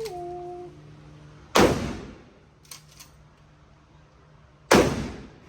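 Two gunshots about three seconds apart, each trailing off in a short echo, with a few faint clicks between them.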